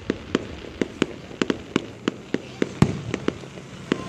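Aerial fireworks popping and crackling: an irregular string of sharp pops, about three a second, with one louder bang about three seconds in.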